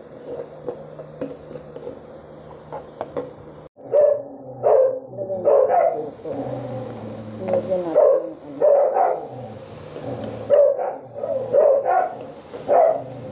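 A dog barking over and over, a dozen or so short barks, starting about four seconds in. Before that, a spatula clicks a few times against a wok over a steady hum.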